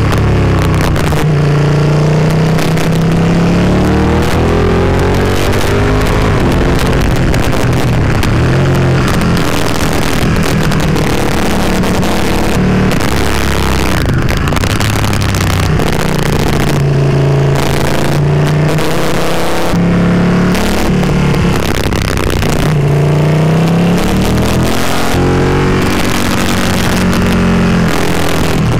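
Ducati Panigale 959's V-twin engine heard from onboard, under steady wind rush. Its pitch rises and falls several times as the bike accelerates and backs off.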